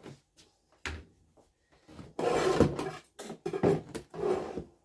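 Kitchen handling sounds as a metal pan full of apple peels is lifted and moved: a knock about a second in, then a loud burst of rustling and clatter about two seconds in, followed by a few more knocks and scrapes.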